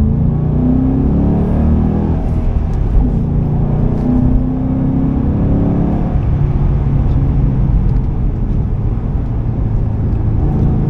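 2005 Ford Mustang GT's 4.6-litre V8 heard from inside the cabin while driving: the engine pitch rises twice in the first half, then holds steady at a cruise from about six seconds in, with road rumble underneath.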